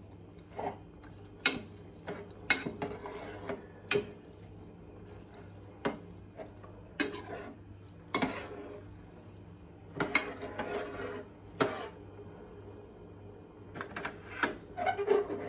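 Metal spoon stirring glutinous rice, water and coconut milk in an enamel pot: irregular clinks and scrapes of the spoon against the pot, about a dozen, with short wet swishes after some of them, over a faint steady low hum.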